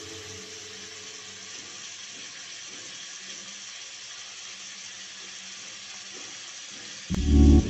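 Steady, even hiss of raw mango pieces sizzling in a pot on the stove. Background music cuts back in near the end.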